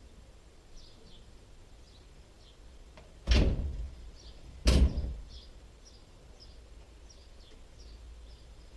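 A plastic IBC water tank in its steel cage, tipped back upright onto its pallet, landing on the ground with two loud thuds about a second and a half apart.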